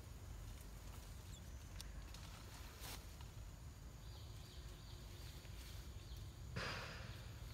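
A young macaque giving one short, breathy cry near the end, over a low steady rumble of outdoor background noise.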